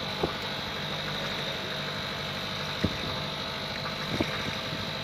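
Small fishing boat's engine running steadily at idle, with three short sharp knocks.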